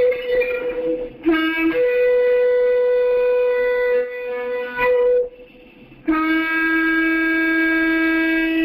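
Shofar (ram's horn) being blown in long held blasts. A higher note sounds for most of the first half, with a brief lower note about a second in. After a short break at about five and a half seconds, a long lower note is held to the end.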